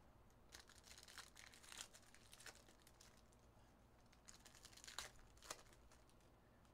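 Faint crinkling and crackling of foil trading-card pack wrappers being handled and torn open, with a couple of sharper crackles about five seconds in.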